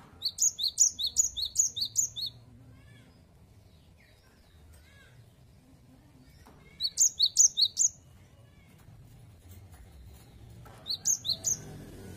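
Cinereous tit (gelatik batu) singing its loud 'wucit-wucit' song: a quick, high two-note phrase repeated in three bouts, about seven phrases in the first two seconds, a shorter bout about seven seconds in, and a brief one near the end. Softer, lower chirps come between the bouts.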